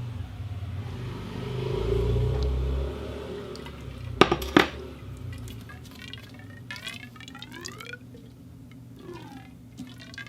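Water moving through a conduit pipe: a low rumbling rush, a few sharp knocks just after four seconds, then a run of hollow, ringing gurgles whose pitch sweeps up and down.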